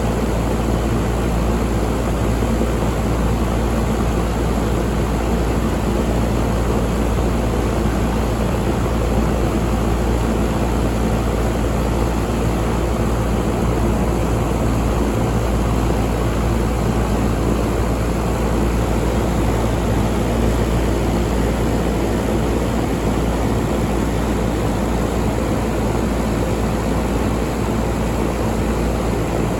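York 5-ton air conditioner running steadily: an even fan rush over a low, constant hum.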